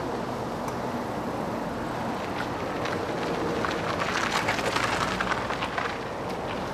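Smart fortwo circling slowly on full steering lock, its small three-cylinder engine running steadily. From about three and a half seconds in, as the car passes close by, its tyres crunch and crackle over loose grit for a couple of seconds.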